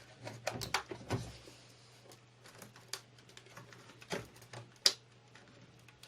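Plastic case of an Asus VH192D LCD monitor being pried apart: irregular clicks and knocks from the snap clips and panels. The sharpest knock comes a little before five seconds in.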